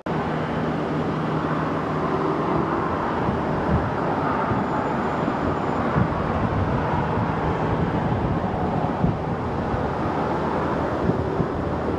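Steady roar of airliner jet engines across the airfield, cutting in suddenly and holding level.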